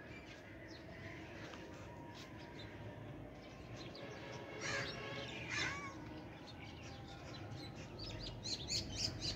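Birds calling outdoors: two short, harsh, crow-like calls around the middle and a quick burst of chirping near the end, over a faint steady background.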